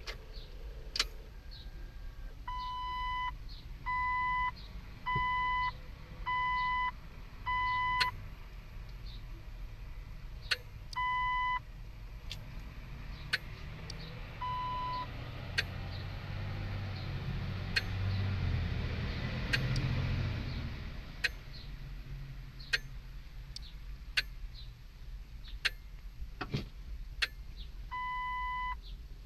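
Jeep Wrangler dashboard warning chime beeping in runs of evenly spaced beeps, about one a second, that stop and start again. Sharp clicks come from inside the dash at irregular intervals: the unexplained clicking on a Jeep that won't start, which the owner wonders may be a brake-alarm relay. A low rumble swells for a few seconds around the middle.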